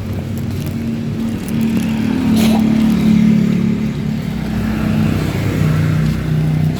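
Motor vehicle engine and road noise while driving: a steady low hum that dips to a lower pitch about five seconds in.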